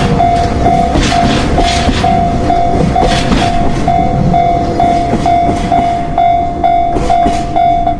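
A train running on rails with a steady rumble and noisy surges, under a single tone that pulses about twice a second, like a crossing warning signal.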